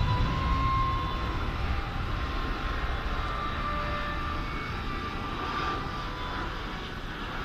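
Airplane engines after takeoff, a low rumble with a steady whine, slowly fading as the aircraft climbs away.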